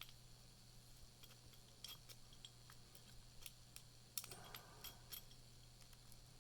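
Faint, irregular metallic clicks and scrapes of a lock pick and tension wrench working the pin tumblers of a Defiant residential deadbolt, with a short rustling scrape about four seconds in.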